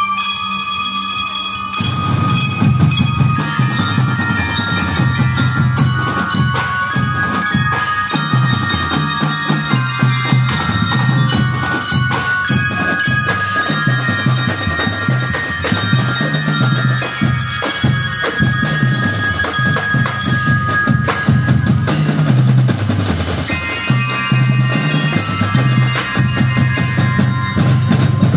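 Marching drum and bell-lyre band playing: ringing mallet-bell notes carry a melody over a steady beat of drums. The low drums come in strongly about two seconds in.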